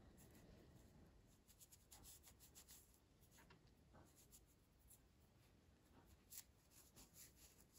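Faint rubbing and rustling of a microfiber cloth being worked between the fingers around a small ceramic ball bearing from a folding knife's pivot, with short scratchy strokes.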